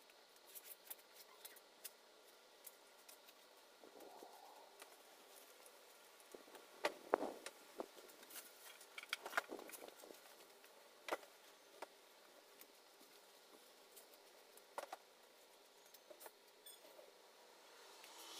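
Wicker patio furniture being moved and set down: faint scattered knocks and clicks, with a few louder ones around the middle.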